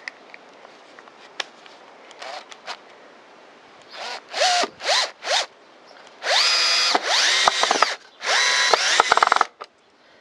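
Bosch PSB 1800 LI-2 18-volt cordless drill/driver driving a small screw into pine. It gives a few short blips of the trigger about four seconds in, then three longer runs of the motor, each winding up in pitch as it starts.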